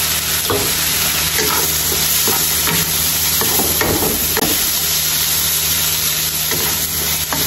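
Squid and sliced spring onion sizzling in a hot wok while a wooden spatula stirs and tosses them. Short scrapes and knocks of the spatula on the pan come at irregular moments over the steady sizzle.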